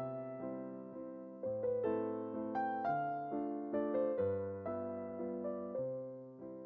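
Background piano music: gently struck notes and chords, each fading away before the next, changing about once a second.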